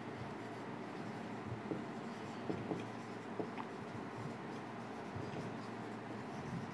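Marker writing on a whiteboard: a series of faint, short strokes and small ticks as letters are drawn.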